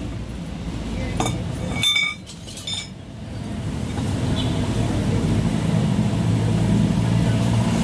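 A few light metallic clinks, then, after a brief dip, a steady low engine hum that builds slightly and holds, like a vehicle engine running at idle.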